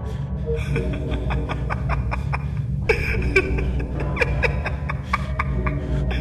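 Eerie horror-style soundtrack: a low steady drone with a run of irregular clicks and a few short sliding squeaks over it.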